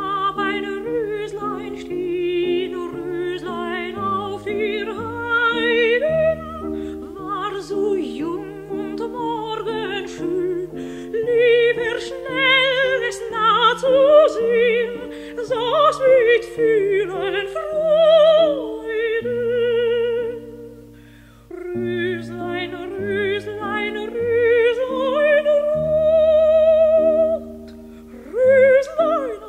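Operatic singing with a wide vibrato over a piano accompaniment of held low notes.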